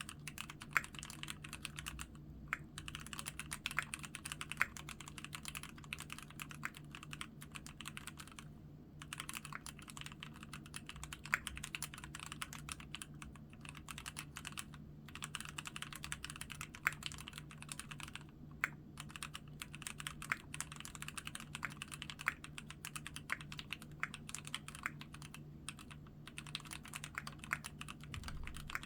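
Keychron Q3 aluminium-cased mechanical keyboard being typed on steadily, a fast run of key clacks broken by a few short pauses.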